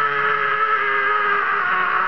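A long, held scream on one pitch, sinking slightly and fading near the end: the comic 'cry for help' dubbed onto a gaping lizard.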